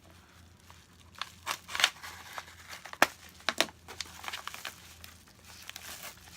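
Packaging being rummaged through and handled, with irregular crinkling and rustling and a few sharp clicks, the sharpest about three seconds in.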